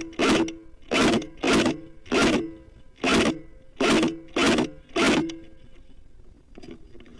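Specna Arms G36E electric airsoft rifle, set up as a DMR, firing eight semi-automatic single shots about half a second to a second apart. Each shot is a short sharp buzz of the motor and gearbox cycling the piston.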